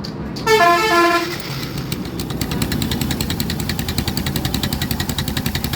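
Yamaha Saluto's single-cylinder engine idling at low RPM with an even, fast knocking pulse. This is the 'thak' sound it makes when the idle is set too low, which the owner puts down to the decompression mechanism and cures by raising the idle RPM and setting the tappet clearance. A vehicle horn toots briefly about half a second in.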